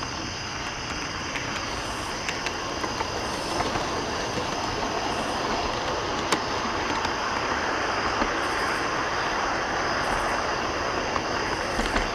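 Local freight train behind a Reading S-2 switcher rolling past: a steady rumble of wheels on rail with a few sharp clicks, swelling about four seconds in. A steady high-pitched trill runs underneath.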